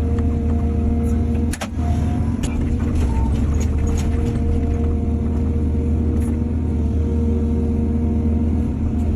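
Excavator's diesel engine running steadily under load, a deep even drone, with scattered light knocks and clicks over it.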